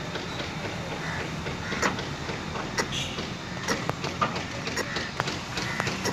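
Boatyard background: a steady low machine hum with irregular sharp clicks and knocks over it.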